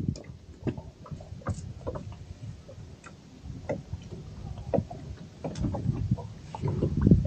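Irregular light knocks and clicks, with a low rumble that grows louder near the end, from gear being handled in a small boat.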